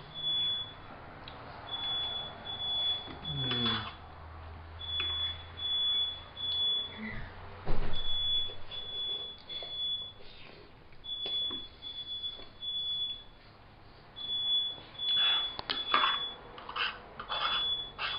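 Smoke alarm going off in its pattern of three high beeps about every three seconds, set off by smoke from cooking. A loud thump comes about eight seconds in.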